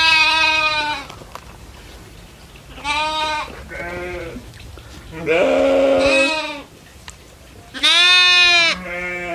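Goats bleating: about six loud, wavering calls, some coming in quick pairs.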